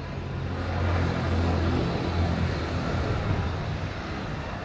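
Motor vehicle engine hum, growing louder about a second in and easing off near the end, as a vehicle passes.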